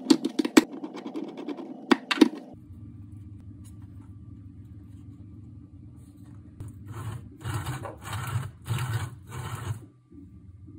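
3D-printed plastic toy parts being handled: a few sharp plastic clicks and knocks in the first couple of seconds, then, after a quiet stretch with a low hum, about five scraping strokes in a row near the end.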